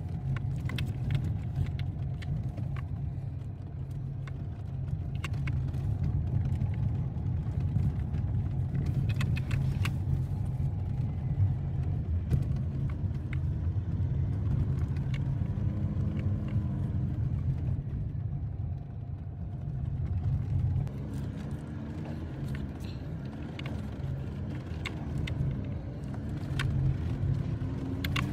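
Jeep Wrangler Rubicon 4xe driving over a rough dirt trail, heard from inside the cabin: a steady low rumble with scattered knocks and rattles as it goes over bumps.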